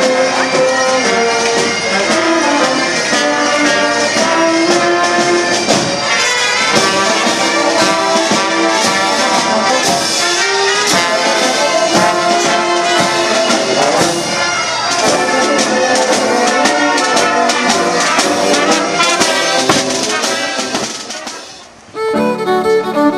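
Instrumental background music led by brass instruments, lively and many-noted, fading out about 21 seconds in. A different piece with long held notes starts right after, near the end.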